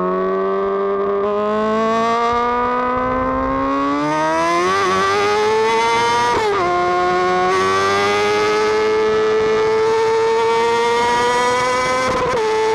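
Vehicle engine accelerating through the gears. Its pitch climbs steadily, falls sharply at a gear change about six seconds in, climbs again, and falls at another shift near the end.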